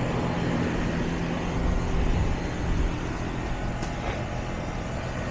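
Newly installed Carrier heat pump outdoor unit running: a steady low hum from the compressor under the even rush of the condenser fan, as the system runs for its refrigerant charge to be checked.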